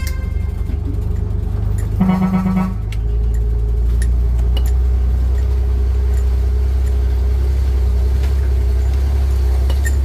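Vehicle engine running with a steady low drone, and a single short horn honk about two seconds in; the drone grows fuller just after the honk.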